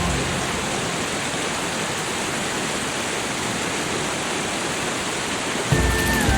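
Steady, even hiss of falling water, like rain or a cascade, with no other sound over it; soft sustained music tones come back in near the end.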